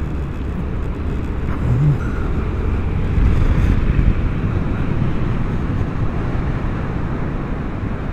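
Steady wind rush and running noise while riding a Vespa GTS300 HPE scooter at speed, with its single-cylinder engine running under the noise. It swells slightly about three to four seconds in.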